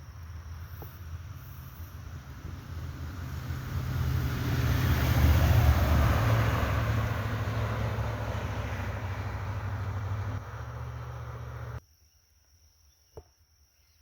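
A vehicle driving past on the road: a rushing tyre-and-engine noise with a deep rumble that builds to a peak about five seconds in, then fades. It cuts off abruptly near the end.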